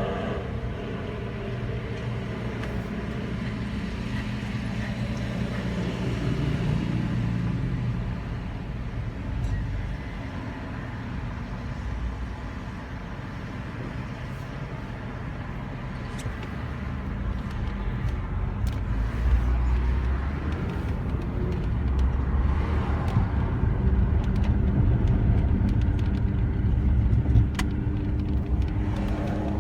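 Nissan Altima driving, with a steady low rumble and, from about halfway through, a grinding with short sharp clicks from the front driver-side wheel: its lug nuts are loose.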